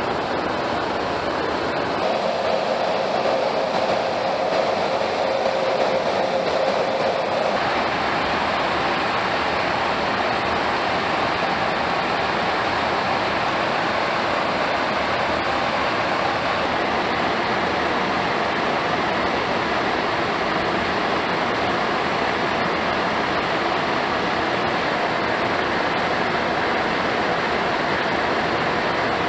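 Steady rushing noise of an aircraft in flight heard from inside its cabin, the drone of the engines mixed with airflow over the fuselage. A slightly stronger hum comes in for a few seconds after about two seconds in.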